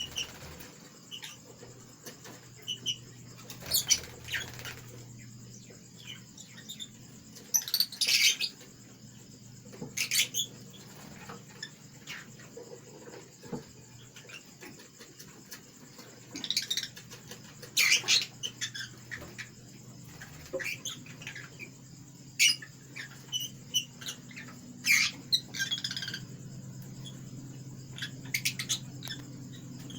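Small birds chirping in short, irregular bursts, some sharper and louder than others.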